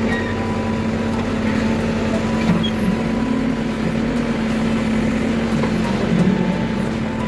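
Diesel engine of a tractor or backhoe loader running steadily.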